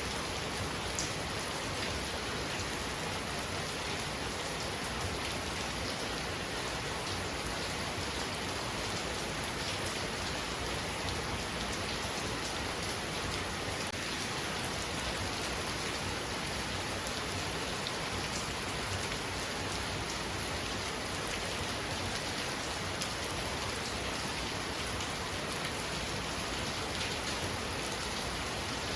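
Heavy rain falling steadily, a dense even hiss with fine drop patter on surfaces.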